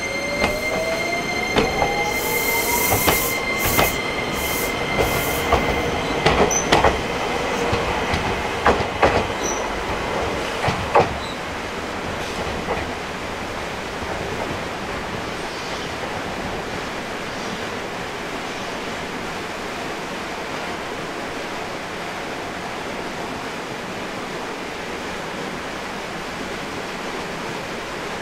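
Alpico Kotsu 20100-series electric train pulling away: its Toyo IGBT VVVF inverter whine rises steadily in pitch over the first few seconds, and the wheels clack over rail joints about a dozen times. The train sound fades by about eleven seconds in, leaving a steady hiss.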